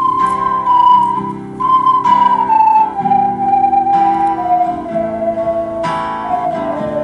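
Ocarina playing a slow, smooth melody that steps gradually downward in pitch. It is held over a soft chordal accompaniment whose chords are struck anew every second or two.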